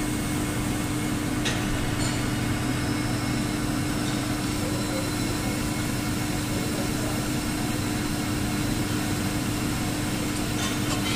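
Metal lathe running, its spindle spinning a thin-walled steel tube, with a steady motor hum. A single sharp click comes about a second and a half in, and a fast run of light ticks, about five a second, begins just before the end.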